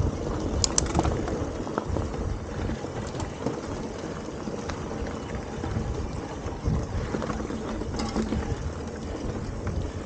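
Mountain bike rolling along a dirt forest trail: a steady rumble of tyres on dirt and wind on the microphone, with a few sharp clicks and rattles from the bike, one under a second in and another about eight seconds in.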